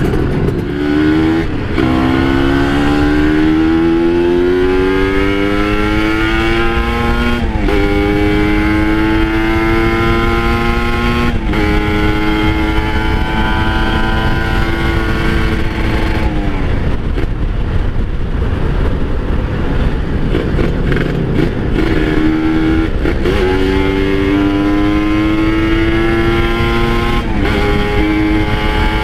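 Kawasaki Ninja RR's two-stroke single-cylinder engine pulling hard on the move: its pitch climbs in each gear, broken by quick upshifts every few seconds. Past the middle the engine note drops away for several seconds, leaving a steady rushing noise, then it climbs through the gears again.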